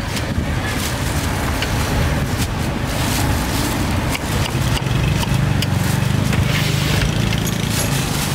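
A motor vehicle's engine running steadily close by, getting louder about five seconds in, with scattered clicks and clatter over a background of street noise.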